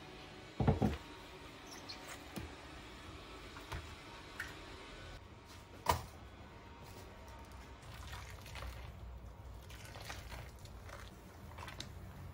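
A short clatter about half a second in and a sharp click near six seconds, then water poured into a plastic basin over dish cloths, building toward the end.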